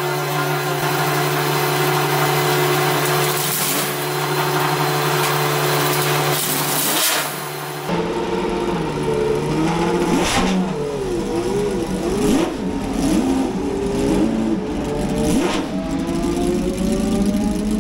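Ferrari Challenge race car engines: a steady drone at first, then after an abrupt change about eight seconds in, engines revving up and down repeatedly and accelerating near the end.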